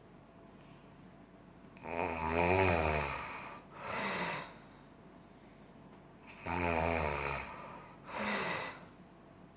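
A person snoring heavily in sleep: two snoring breaths about four and a half seconds apart, each a long snore followed by a shorter one.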